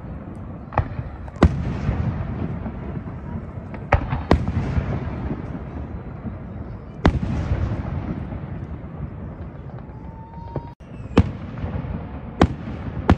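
Fireworks display: aerial shells bursting with about eight sharp bangs spaced unevenly, each followed by a rumbling fade. A brief whistling tone sounds a little after ten seconds.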